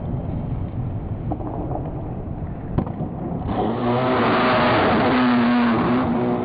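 Skateboard wheels rolling over rough pavement, with a single sharp click a little under three seconds in. From about halfway the noise grows into a loud scrape as the board is turned sideways into a powerslide, its wheels sliding across the ground.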